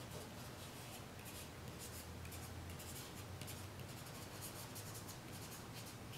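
Fingertip rubbing charcoal on drawing paper, a faint run of short, scratchy strokes several times a second, smoothing out spotty patches in the charcoal. A low steady hum sits underneath.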